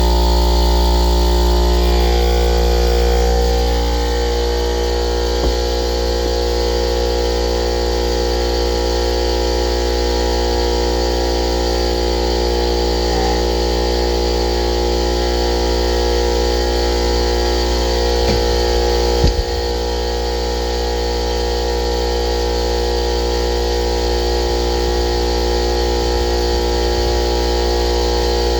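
Rebuilt electric air compressor, a Ridgid motor and pump on a Craftsman tank, running steadily with a constant hum. There is a single sharp click about five seconds in and a short knock at about nineteen seconds.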